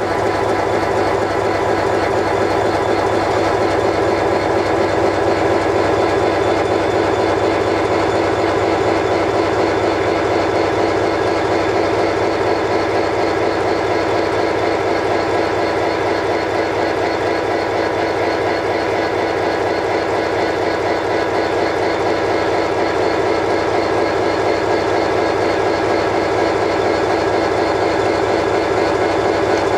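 Irish Rail class 071 General Motors diesel-electric locomotive, its EMD 645 two-stroke diesel engine idling steadily at the platform.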